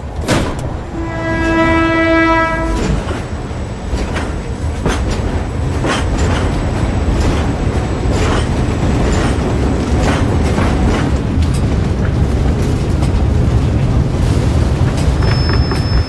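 Passenger train horn sounding one held note for about two seconds, then the train running with a steady rumble and repeated clanks and clatter of its wheels and cars on the track.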